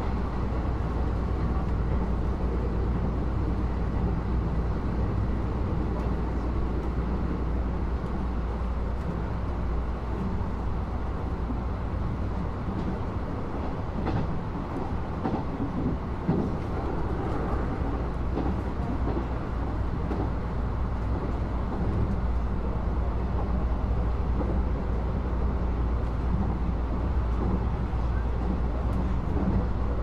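Steady running noise heard inside a Nishitetsu limited express train car: a constant low rumble of the wheels on the track and the train's running gear, easing slightly about halfway through.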